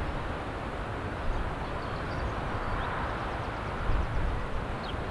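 Steady outdoor rumble and hiss, uneven at the low end, with a few faint short high chirps.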